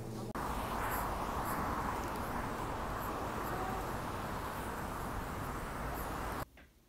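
City street ambience: a steady wash of traffic noise with a low rumble, cutting off suddenly near the end. It opens with a brief steady hum from a store's refrigerated display case.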